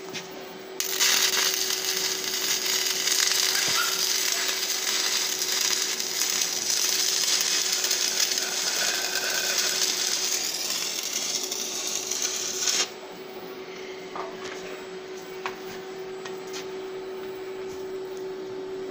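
Stick (shielded metal arc) welding with a 3/32-inch 6013 electrode on 14-gauge steel rectangular tubing: the arc crackles steadily for about twelve seconds, starting about a second in and cutting off suddenly when the arc is broken. A steady hum runs underneath throughout.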